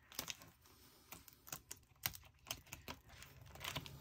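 Fingernails picking and poking at a paper sticker sheet to free a sticker that was not cut cleanly: faint, irregular small clicks and light paper taps.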